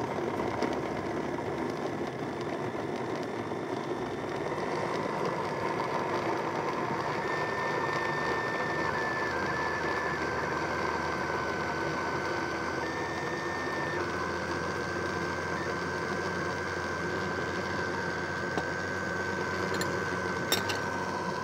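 Electric countertop blender running steadily, puréeing strawberries and beetroot with water into juice. Its motor whine shifts in pitch a few times in the middle, and there are a couple of light clicks near the end.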